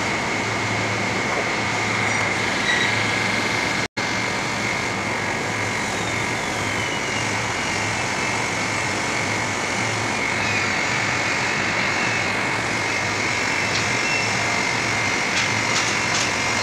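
Steady machinery noise of a refrigeration condensing unit running: an even rushing whir with a high whine and a pulsing low hum. The sound drops out for an instant about four seconds in.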